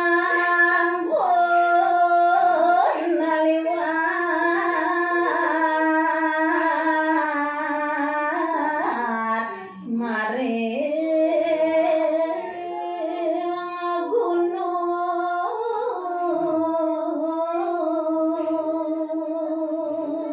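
A woman singing a Balinese geguritan verse to a pupuh Sinom melody, solo and unaccompanied, into a microphone: long held notes with ornamented bends and slides, with a short break for breath about ten seconds in.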